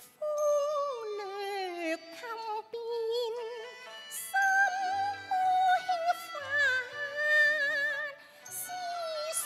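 Cantonese opera music: a melody that glides and wavers with vibrato, with a few short crisp strokes in the highs.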